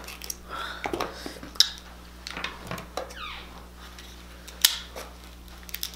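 Cooked king crab leg shells being broken apart by hand and snipped with kitchen scissors: scattered sharp cracks and clicks, the sharpest about four and a half seconds in.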